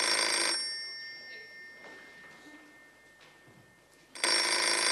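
Telephone ringing: one ring ends about half a second in, and the next begins about four seconds later, near the end.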